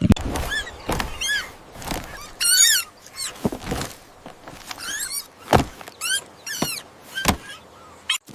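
A run of short, high squeaky calls that bend up and down, about two a second, mixed with sharp knocks and thuds.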